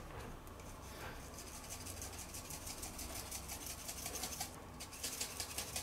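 Pepper mill grinding peppercorns: a faint, quick run of dry, scratchy clicks, with a short pause about four and a half seconds in.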